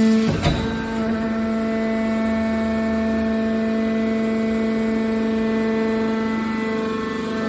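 Hydraulic car baler running with a steady pitched hum from its hydraulic power unit, broken by one sharp metallic knock about half a second in.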